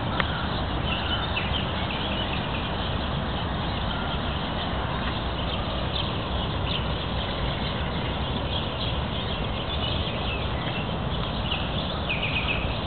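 Park ambience: a steady low rumble of distant road traffic, with small birds chirping now and then.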